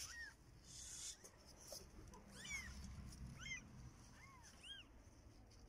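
Newborn kittens mewing faintly: about half a dozen short, high, thin squeaks that rise and fall in pitch, several coming close together in the middle.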